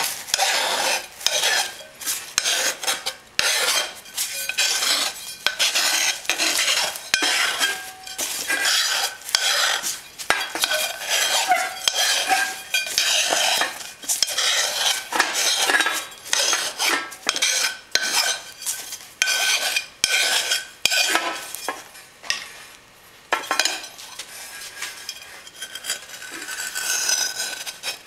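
Quick, irregular scraping and clattering strokes of a knife and hand tools against a thin metal sheet with foam over it, as the sheet is trimmed and worked. The strokes thin out and get quieter about three quarters of the way through.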